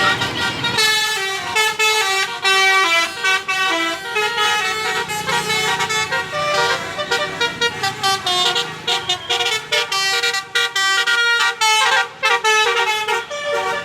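Indonesian bus 'telolet' musical horn playing a tune: a run of held horn notes stepping up and down in pitch, with short breaks between phrases.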